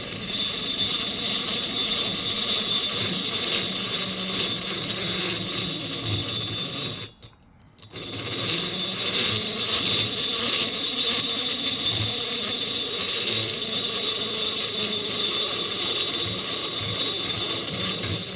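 High-speed air die grinder running steadily with a high whine as it grinds the transfer ports of a Husqvarna 266SE chainsaw cylinder. It stops for about a second around seven seconds in, then runs again.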